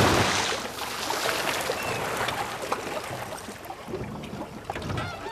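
Seawater sloshing and splashing around a small car that has just plunged into the sea. The rush of water fades away steadily, with scattered small splashes and drips.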